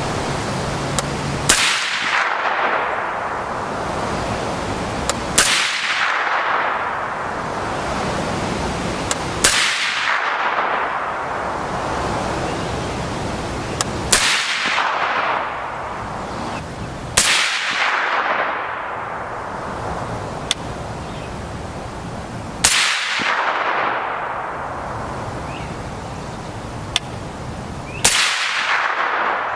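Suppressed .30-calibre rifle shots through a Sig Sauer SRD762Ti titanium suppressor: seven single shots several seconds apart, each followed by a long echo that fades over a second or two.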